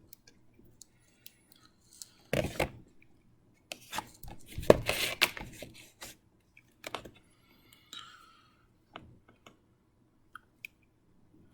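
Scattered small clicks, knocks and rustles of wires and pins being handled and pushed into a solderless breadboard, busiest about four to six seconds in.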